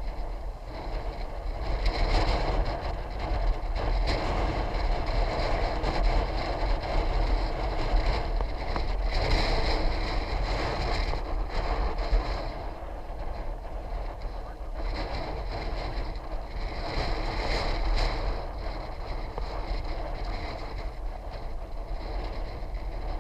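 Wind rumbling across the microphone with road noise from a moving bicycle. It swells and eases a few times.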